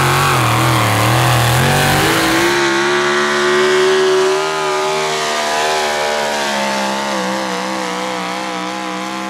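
Pro stock 4x4 pulling truck's engine at full throttle, dragging a weight-transfer sled. The revs waver up and down at first, then climb about two and a half seconds in and hold high and steady.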